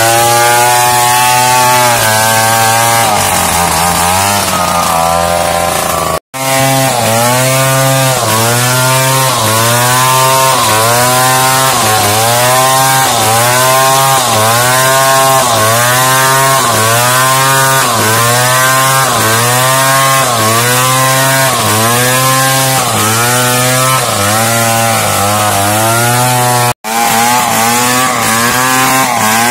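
Big two-stroke Stihl chainsaw running at high throttle, ripping lengthwise through a timber log to saw planks. Its pitch dips and recovers about once a second as the bar takes load in the cut. The sound cuts out abruptly for an instant twice.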